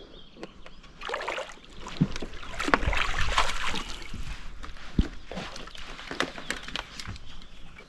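Water sloshing and splashing around a small fishing boat, with scattered knocks, loudest from about one to four and a half seconds in.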